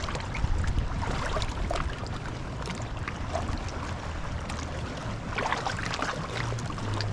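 Seaside ambience on a rocky shore: a steady low rumble with a haze of water noise and scattered faint clicks.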